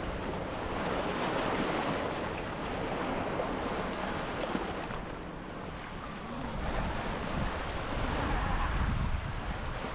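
Sea waves washing on a beach, with wind buffeting the microphone, the low rumble of the wind growing stronger about six and a half seconds in.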